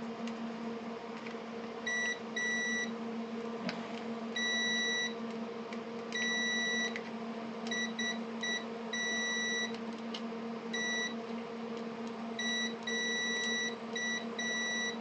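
Digital multimeter's continuity/diode-test beeper sounding in irregular short and longer beeps as the probes touch components on a power-supply board, starting about two seconds in. A steady low electrical hum runs underneath.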